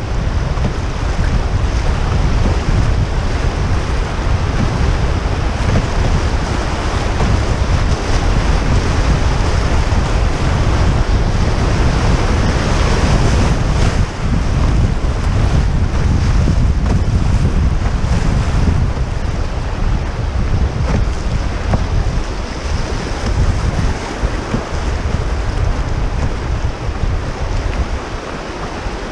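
Whitewater river rapids rushing steadily around a canoe, loud and continuous, with wind buffeting the microphone.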